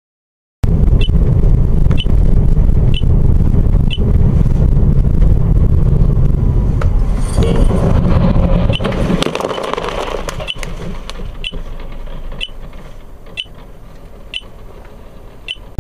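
Loud low rumble of a moving car heard from inside, starting abruptly and fading over the second half, with a sharp tick about once a second.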